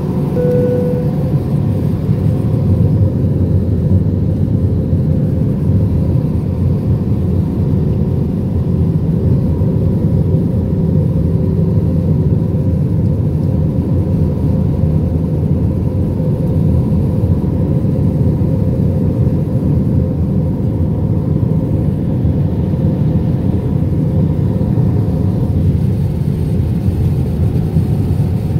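Airbus A320-200 cabin noise in flight: the steady low roar of engines and airflow heard from inside the cabin, with a faint steady hum. A short faint tone sounds near the start.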